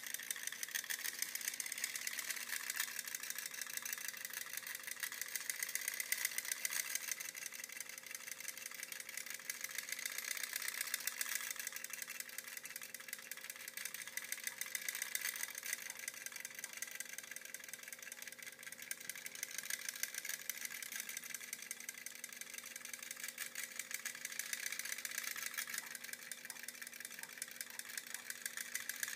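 Clockwork spring motor of a vintage ALPS tin wind-up cowboy toy running, a rapid, steady ticking whir of its gears that swells and fades a little as the toy turns.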